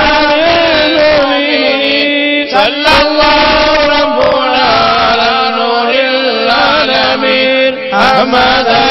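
Several men chanting a devotional Arabic salawat together through hand-held microphones, holding long, drawn-out, ornamented notes. The phrases break briefly about two and a half seconds in and again near the end.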